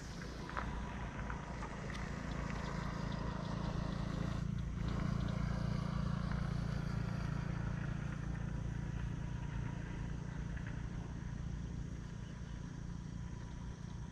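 An engine running steadily with a low hum, a little louder from about five seconds in.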